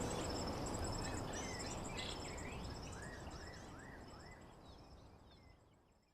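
Outdoor ambience: insects trill steadily in high pulsing tones and a bird gives a few short chirps, over a low rumble. It all fades gradually to silence.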